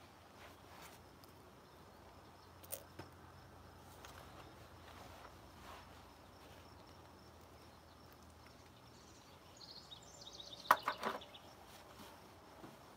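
Glass jar handled in oven mitts: a single light click, then a cluster of sharp clicks about eleven seconds in, over a quiet outdoor background. A short high trill sounds just before the clicks.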